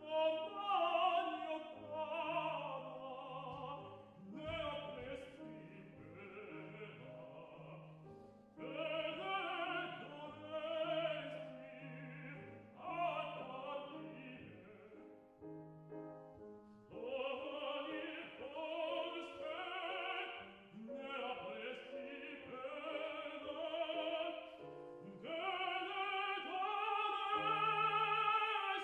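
Operatic solo singing with a wide vibrato, accompanied by grand piano. The voice breaks off briefly about eight seconds in and again around the middle, where the piano carries on alone.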